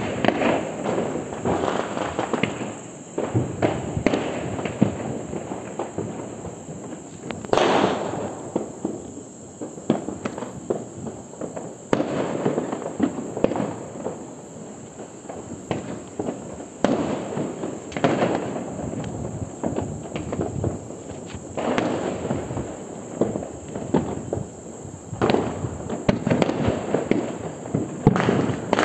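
Fireworks going off: rockets launching and bursting amid a near-continuous crackle of pops, with a few louder bangs spread through.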